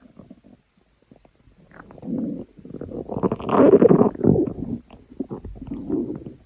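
Stomach growling in three bouts of rumbling. The longest and loudest comes about three to four seconds in, after a quiet first second and a half.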